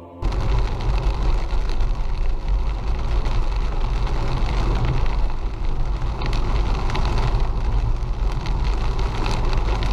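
Car cabin noise while driving through heavy rain: a steady low rumble of engine and tyres on a wet road, with rain hitting the windscreen.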